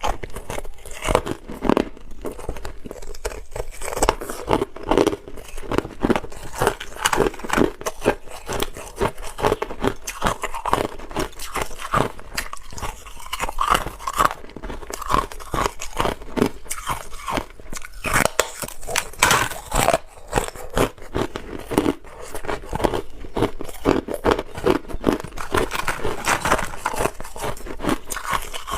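Close-up crunching and chewing of hard clear ice: a steady stream of sharp, irregular cracks and crunches as chunks are bitten and ground between the teeth.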